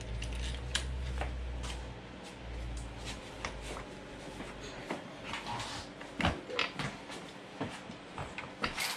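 Scattered clicks, knocks and rubbing of a Yoshimura RS-2 exhaust muffler being handled and lined up on its mounting bracket, with a low rubbing rumble during the first two seconds.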